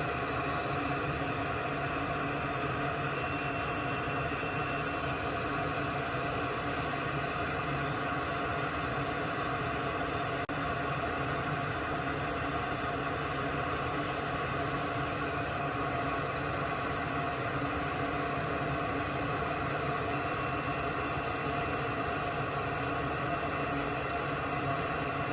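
Steady whirring hum and hiss, like a fan or motor running, throughout. A faint, thin, high-pitched beep is heard twice, about two seconds long a few seconds in and several seconds long near the end, fitting a multimeter's tester tone as the capacitor is probed for its polarity.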